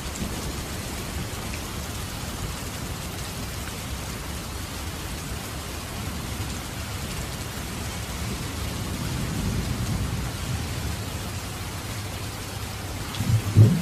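Heavy rain falling steadily, a continuous hiss. A low rumble swells about eight seconds in, and a louder low sound comes in near the end.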